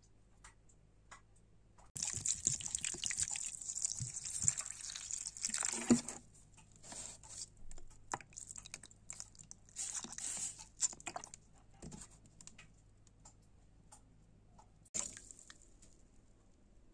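Water pouring and splashing over broccoli florets in a bowl as they are soaked and rinsed: a steady stream that starts suddenly and runs about four seconds, then several shorter spurts, with drips and small clicks between.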